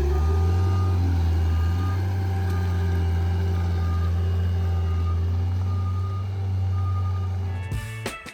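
Skid steer loader's diesel engine running steadily, with its backup alarm beeping about once a second as it reverses. Near the end the sound cuts to music.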